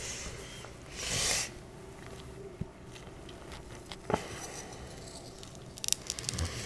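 Quiet cutting sounds of a kiritsuke deba knife working into a whole fish on a cutting board. There is a soft hiss about a second in, a single sharp click about four seconds in, and a run of small crackling ticks near the end.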